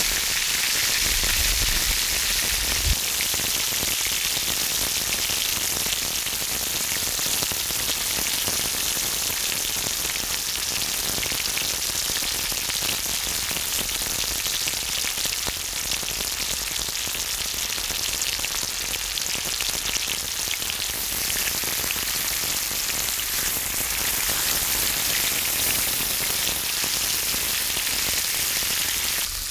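Pork belly sizzling on a cast-iron cauldron-lid griddle: a steady, dense sizzle with many fine pops of spitting fat.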